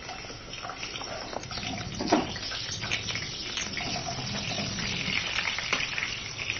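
Cubed raw potatoes dropped a few at a time into hot mustard oil in a non-stick kadai, the oil sizzling and growing louder as more pieces go in, with small clicks and a sharper pop about two seconds in.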